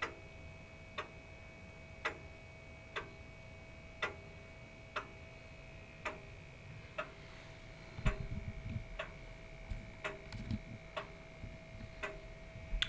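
Mid-1700s Samuel Bentley English grandfather clock ticking about once a second, a tick-tock alternating slightly in strength, over a faint steady hum. From about eight seconds in, low thumps and rumbling join the ticking.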